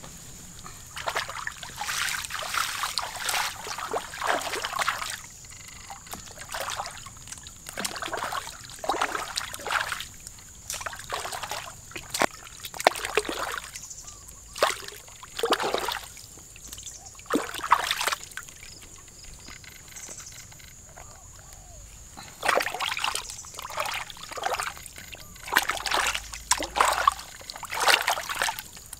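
Water splashing and sloshing in irregular bursts, as from hands or objects moving in water, with a lull of a couple of seconds about twenty seconds in.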